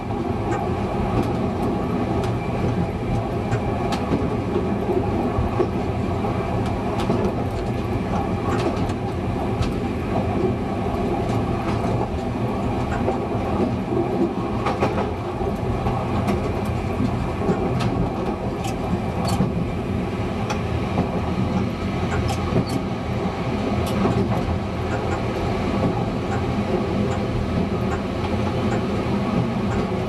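Czech Railways class 854 diesel railcar running along the line, heard from the driver's cab: a steady engine and running noise, with occasional sharp clicks from the wheels over the track.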